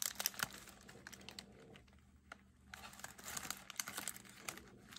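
Faint clicking and crinkling of small plastic zip-lock bags of diamond painting drills being shuffled through by hand, with a brief quiet stretch a little after two seconds in.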